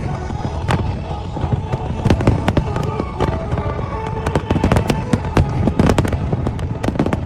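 Fireworks display bursting in quick succession: many sharp bangs and cracks, several a second, over a continuous rumble of explosions.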